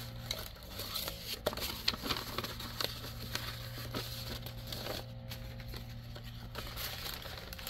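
Plastic packaging crinkling and rustling as it is handled, with scattered light clicks and taps, over a steady low hum.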